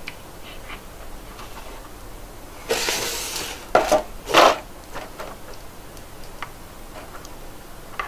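Small plastic clicks of a phat! Parfom action figure's joints being turned by hand. About three seconds in there is a louder scraping rustle, then two knocks, as the figure's cardboard box is moved on the table.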